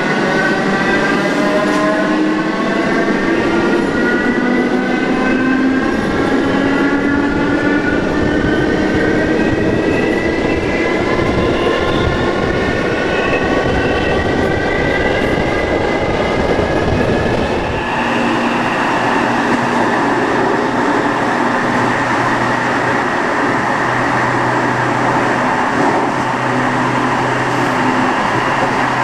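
Modernised SNCB AM80 electric multiple unit's traction motors whining as the train picks up speed, a set of tones rising steadily in pitch over the rumble of the running gear. About two thirds of the way through the sound changes abruptly to a steadier mix of lower tones.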